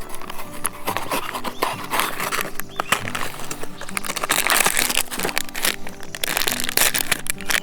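Background music with steady held notes, over dense crackling and crunching that grows louder in the middle.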